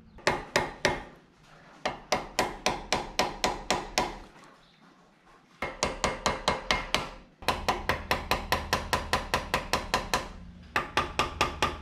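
Small ball-peen hammer tapping metal on metal in quick runs of about four or five light strikes a second, with short pauses between runs. It is peening over the end of a new brass choke shaft held in a bench vise, riveting it into the choke arm of a Toyota SD40 carburettor.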